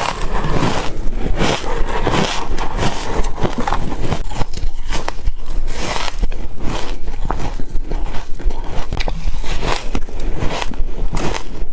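Close-miked biting and chewing of ice: a quick, dense string of crunches and crackles.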